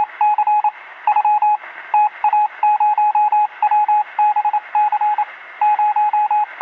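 Electronic beeping sound effect: short beeps at one mid pitch, several a second in irregular clusters with brief gaps, over a steady hiss that sounds thin, like a radio transmission.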